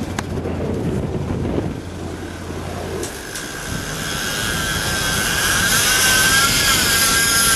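Boat engine running under wind and water noise. About three seconds in, a high wavering whine sets in and grows louder: a big-game trolling reel's drag screaming as a marlin takes line.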